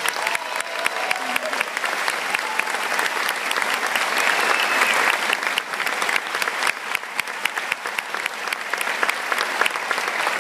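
Concert-hall audience applauding, many hands clapping in a dense, even patter that builds over the first few seconds, with a few voices calling out near the start.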